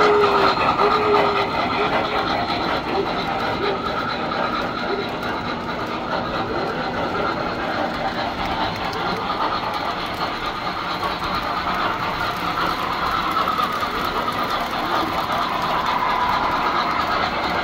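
Tinplate toy electric trains running on three-rail track: a steady metallic rolling rumble of wheels on the rails mixed with motor whine.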